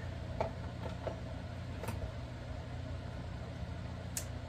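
A few light clicks and taps of a screwdriver and small metal fishing-reel parts being handled while a screw goes into the reel's side plate, over a steady low background hum.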